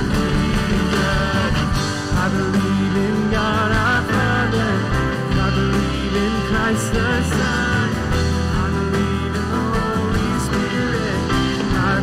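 Live worship song: a woman singing lead with a band of acoustic guitar, electric guitar and drums.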